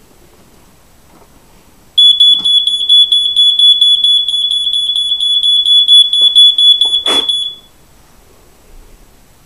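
A smoke alarm's horn sounds one loud, steady, high-pitched tone with a fast flutter, starting about two seconds in and cutting off after about five and a half seconds. A sharp click comes just before it stops.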